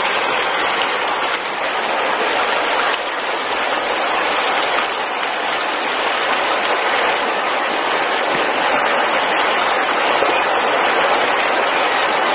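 Steady rush and splash of shallow water flowing across a road.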